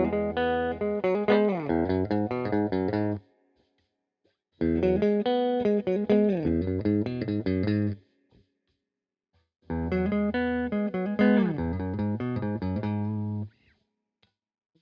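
Epiphone Les Paul Black Beauty three-humbucker electric guitar played with a clean tone. A short phrase is played three times with pauses between, each with a run of falling notes.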